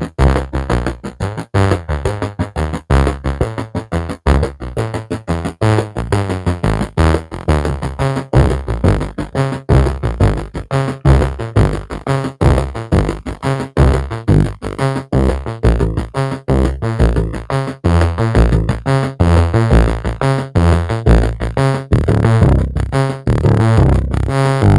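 Electronic synthesizer music: a fast, steady stream of short, clipped notes over a pulsing bass line.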